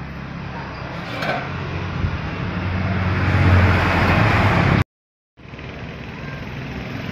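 Road traffic with a motor vehicle's engine growing louder, at its loudest about three and a half seconds in; the sound cuts off suddenly just before five seconds, then steady traffic noise resumes.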